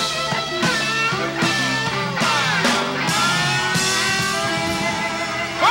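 Live electric blues band playing an instrumental passage: electric guitar lines over bass notes that step from note to note.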